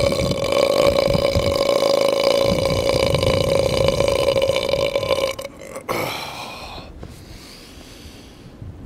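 A man's long, loud belch after swigging malt liquor, held at a steady pitch for about five and a half seconds before it breaks off.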